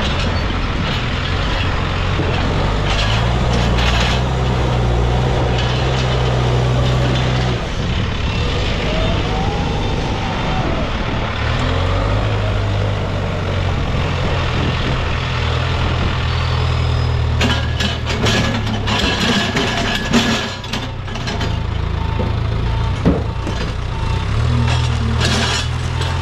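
Case backhoe loader's diesel engine running, its pitch stepping up and down as it works under changing load. In the second half a run of knocks and clatter sounds over it.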